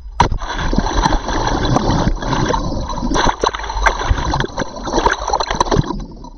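Space capsule splashing down in the sea under its parachute: a sudden loud hit of water about a quarter second in, then water churning and gurgling around the capsule's onboard camera with repeated knocks. The sound fades near the end.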